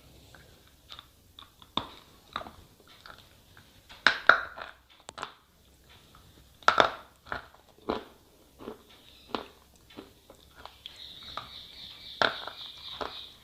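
Slate pencil being bitten and chewed close up: irregular sharp crunches, a few much louder bites among smaller grinding chews.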